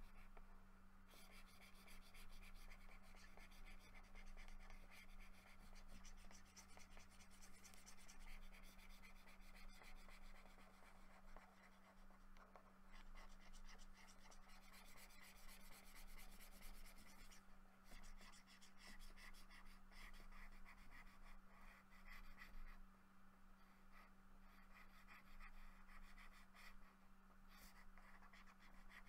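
Faint scratching of a pen stylus stroking across a drawing tablet in quick strokes, pausing now and then, over a steady low hum.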